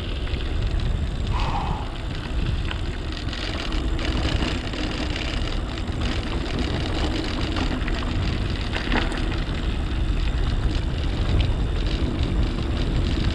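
Mountain bike on the move: a steady rumble of wind on the microphone mixed with rolling tyre noise on a dirt trail, with a sharp knock about nine seconds in.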